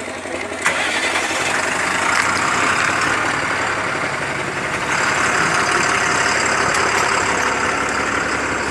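Vehicle engine running steadily, getting louder just under a second in and again about five seconds in.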